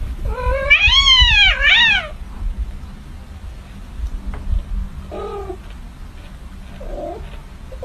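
Kitten meowing: a loud, drawn-out meow that rises and falls, with a shorter one straight after. A couple of fainter meows follow later.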